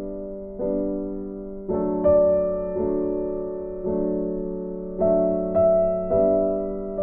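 Background piano music: slow, gentle chords struck about once a second, each ringing and fading before the next.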